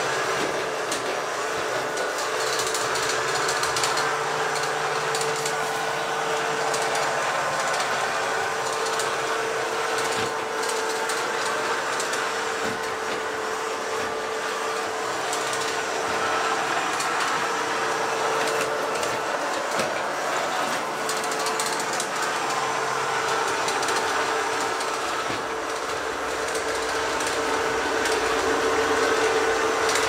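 Taurus Striker Mini robot vacuum cleaner running: a steady motor hum with one constant tone and a light mechanical rattle from its brushes and wheels as it drives across the floor.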